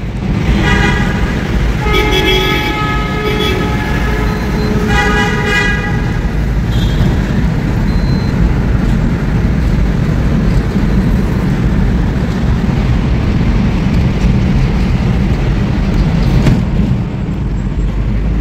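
Vehicle horn blasts, three of them in the first six seconds, each a steady pitched tone, over the continuous rumble of a truck's engine and tyres in a road tunnel.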